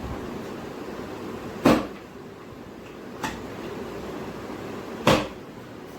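Sharp knocks from a chiropractic knee adjustment: a loud one, a fainter one, then another loud one, about a second and a half apart.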